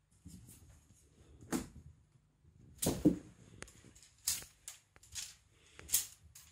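Irregular swishes, rustles and thumps of a cat wand toy on a string being whisked over a duvet in play, the loudest about three seconds in.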